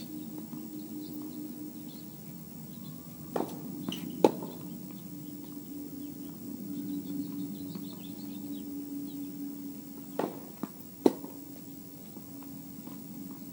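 Tennis ball pops off rackets and the court in two short bursts of play, about three to four seconds in and again about ten to eleven seconds in, each a few sharp hits under a second apart. A steady low hum runs underneath.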